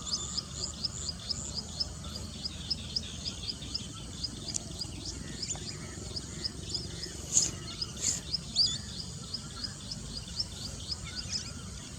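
Birds calling: a rapid, evenly repeated series of short high chirps, about four a second, for the first half, then a few louder single calls, over a low steady background rumble.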